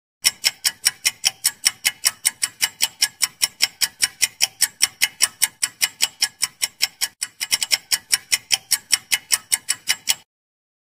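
Ticking clock sound effect of a quiz timer: rapid, even ticks about four to five a second, with a brief hitch about seven seconds in, cutting off abruptly after about ten seconds.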